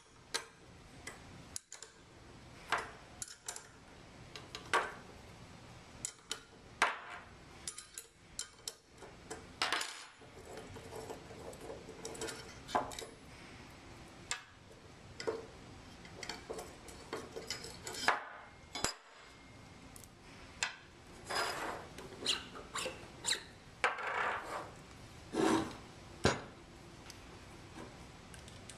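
Small metal clicks and clinks of a wrench working two quarter-20 bolts out of a stainless steel sampler housing, with the loose bolts and steel parts knocked and set down on a table. The clicks are scattered and uneven, with a few longer ringing clinks near the end.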